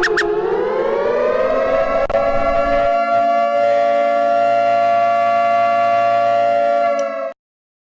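Emergency warning siren tone, rising in pitch over about two seconds and then holding one steady note, which cuts off abruptly about seven seconds in.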